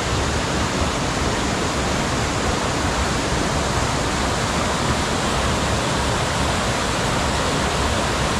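Waterfall: water pouring and splashing in one loud, steady rush.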